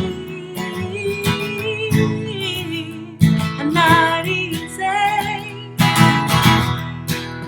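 A song's outro: chords strummed in a steady rhythm, with a singing voice holding long, wavering notes over them without clear words.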